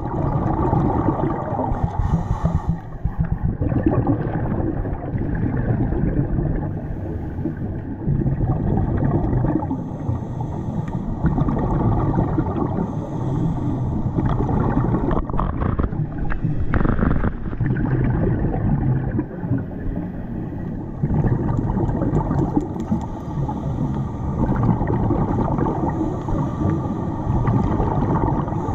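Underwater sound of scuba diving: a steady low rumble with the gurgle of divers' exhaled regulator bubbles, rising and falling in level.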